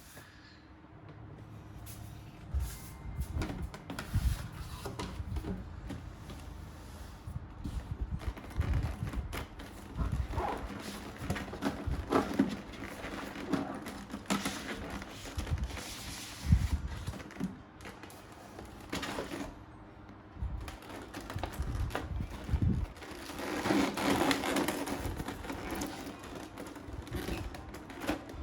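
Packaging of a boxed collectible figure being handled and opened: irregular rustling, scraping and knocking of cardboard and plastic, with a longer stretch of rustling near the end.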